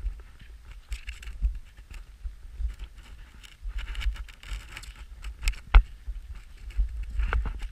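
Boots crunching through snow at a walking pace, about one step a second, with a sharp click a little before six seconds in. Wind rumbles on the microphone underneath.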